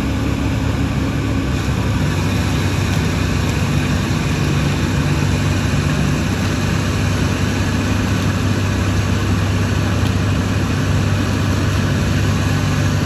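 Bulldozer diesel engine running steadily with a deep, even hum, its note shifting slightly partway through.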